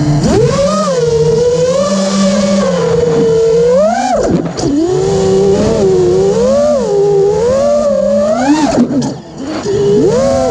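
Brushless motors and propellers of a 5-inch freestyle FPV quadcopter, heard from its onboard camera: a whine whose pitch rises and falls with the throttle. It swoops up sharply and drops away about four seconds in, and again near nine seconds, where it briefly goes quieter before climbing back.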